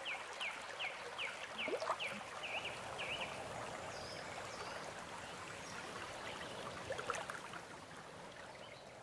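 Soft ambience of still water, a gentle trickling hiss, with a run of short high chirps, about three a second, over the first three seconds. It fades out at the end.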